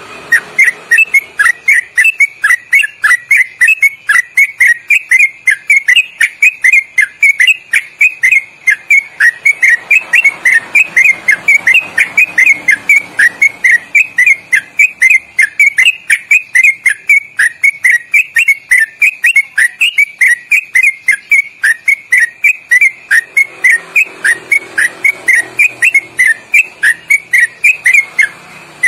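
Yellow-vented bulbul singing a long, loud 'ropelan': a fast, unbroken run of short whistled notes, each slurring downward, about five a second.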